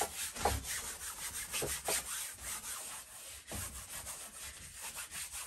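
Wide flat paintbrush scrubbing paint onto a stretched canvas: a dry, scratchy rubbing made of many quick back-and-forth strokes.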